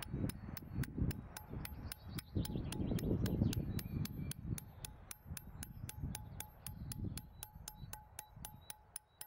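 Iron chisel struck steadily with a small hammer against a runestone boulder, about four ringing metallic taps a second, cutting the first thin groove along the drawn lines of the design.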